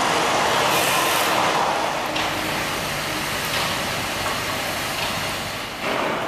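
Steady rushing noise of a construction site, with a few faint knocks.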